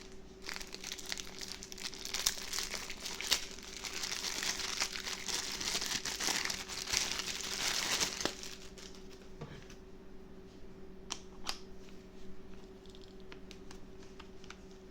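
Packaging crinkling and rustling as the drill's head attachments are unwrapped, for about eight seconds, then a few light clicks and taps as the parts are handled.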